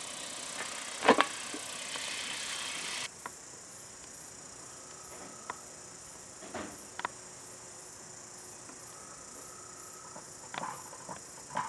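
Steady high-pitched chirring of insects, with a few light clicks and knocks scattered through, the sharpest about a second in. A louder hiss over the first three seconds cuts off suddenly.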